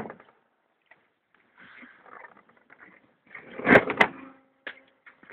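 Handling noise from a handheld camera rubbing and bumping against car seat upholstery, with a loud knock and two sharp clicks a little under four seconds in.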